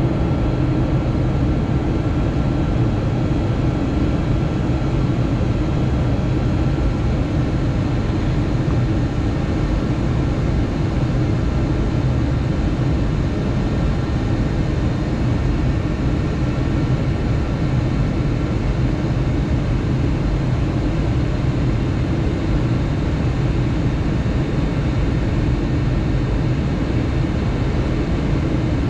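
Steady cabin noise of a jet airliner in flight, heard from a window seat: a low engine hum and rushing airflow, with a faint steady whine above it, as the plane descends toward landing.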